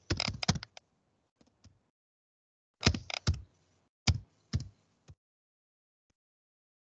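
Computer keyboard typing: quick keystrokes in about four short bursts, stopping a little after five seconds in.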